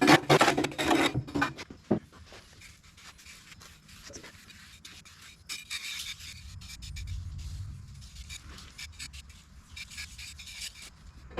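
A tool scraping and rubbing through wet concrete countertop mix, loud and dense for about the first two seconds, then fainter and more broken. A low rumble comes in around seven seconds in.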